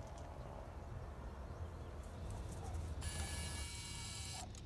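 Quiet outdoor background: a low rumble with faint noise. About three seconds in, a faint high hiss with thin steady tones comes in.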